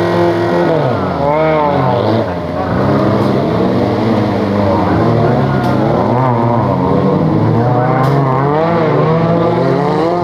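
Off-road competition vehicle's engine revving hard and repeatedly, its pitch rising and falling again and again as the driver works the throttle under load.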